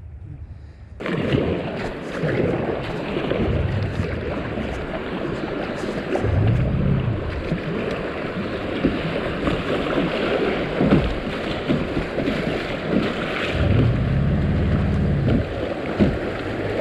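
River water rushing steadily around a kayak, starting about a second in, with wind buffeting the microphone in a couple of low gusts.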